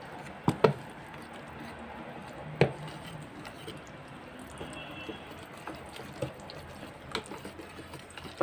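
Wire whisk stirring thick cornmeal batter in a plastic container: a steady wet swishing, with a few sharp knocks of the whisk against the container, the loudest about two and a half seconds in. The batter is beginning to thicken.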